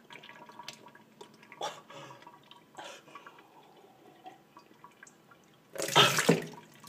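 Water sloshing in a plastic bottle with small gulping sounds as a person drinks from it, then a loud burst of noise about six seconds in.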